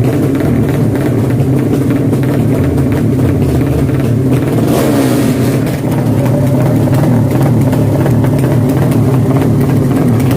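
Drag racing engines running loud and revving continuously, with pitch sweeping up and down about halfway through.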